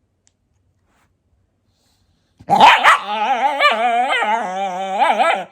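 Shiba Inu breaking into a sudden, wavering, pitched growl-whine about two and a half seconds in, lasting about three seconds: the dog protesting at having its paws handled for nail clipping.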